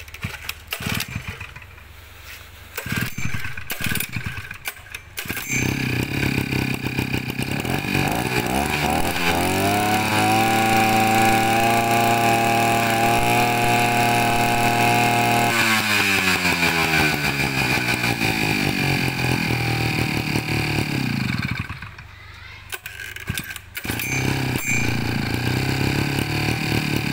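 Small 55cc engine of an EC05 water pump starting about five seconds in. It revs up to a steady high speed, is throttled back down and stops about 21 s in, then runs again near the end.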